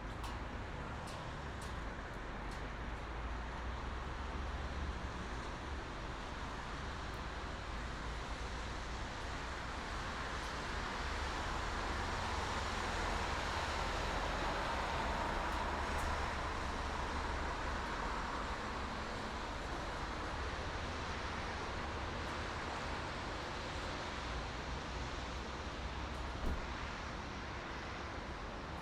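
Continuous road traffic: a steady hiss and rumble of tyres and engines, with one louder vehicle pass swelling and fading around the middle. A brief knock comes near the end.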